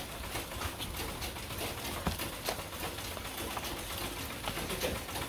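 Irregular light clicks and knocks, several a second, over a steady low hum.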